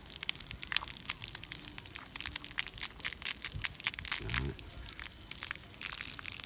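Water from a garden hose spattering onto a freshly poured, sun-dried concrete roof slab, with a dense crackling, sizzling patter as the dry concrete takes in the water.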